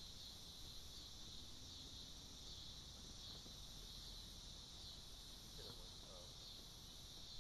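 Faint, steady insect chorus: a continuous high-pitched buzz with a slight pulse, over a low rumble.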